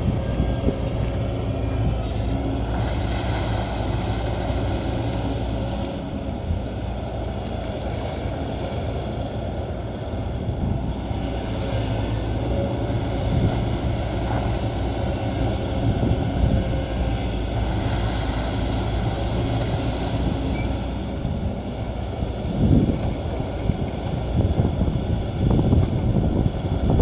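Excavator's diesel engine running steadily at work, with a few louder knocks near the end.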